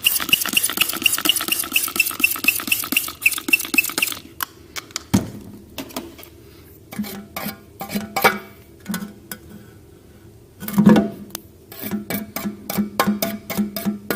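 Engine parts being cleaned by hand: quick, even scrubbing strokes for about four seconds, then scattered metallic clinks and light clicks of tools and parts being handled, with a faster run of clicks near the end.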